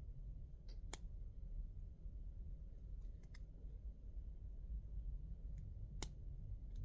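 Lock picks working the pins of a cheap padlock: a few sharp, faint clicks spaced a second or more apart, the loudest about a second in and near the end, over a low steady hum.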